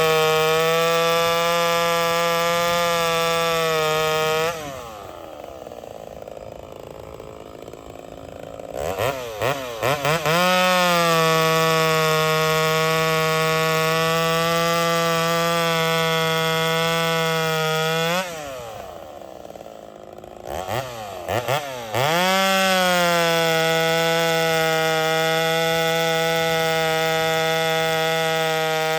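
Ported Homelite VI-130 two-stroke chainsaw with an extremely loud muffler running flat out through firewood cuts, its pitch holding steady under load. Twice it drops to idle, about 4 and 18 seconds in, then is blipped a few times and brought back to full throttle for the next cut.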